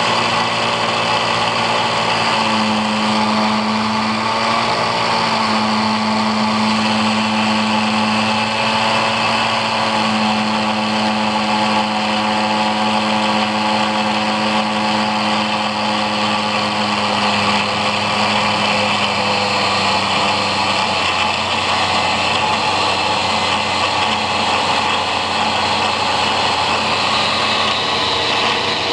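Angle grinder mounted as a cut-off saw, its motor running steadily without a break.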